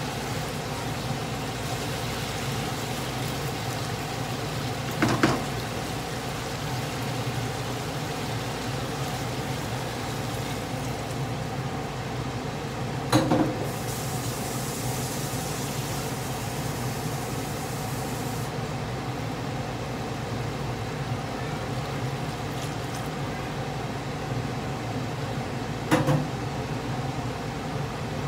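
Stew chicken simmering and sizzling in a wide pan of sauce on a gas burner: a steady bubbling sizzle over a low background hum, broken by three brief knocks.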